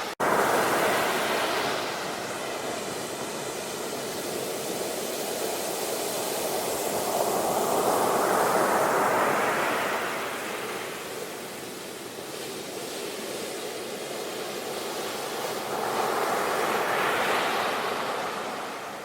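Ocean waves washing in, a continuous rush of surf that swells and eases, with a wave surging up about every eight or nine seconds. The sound cuts out for a split second just after the start.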